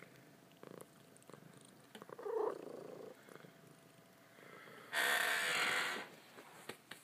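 Calico cat purring close to the microphone, with a short, bending call about two seconds in. About five seconds in, a loud rustling noise lasts about a second.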